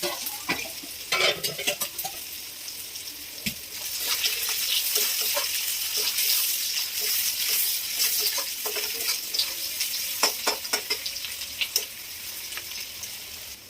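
Food sizzling as it fries in hot oil in a pan. A spatula stirs, scraping and clicking against the pan, and the sizzle grows louder about four seconds in.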